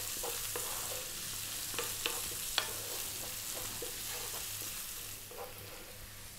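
Sliced red onion and garlic sizzling in olive oil in a nonstick frying pan, stirred with a wooden spatula that gives a scatter of light taps and scrapes against the pan. The sizzle eases a little near the end.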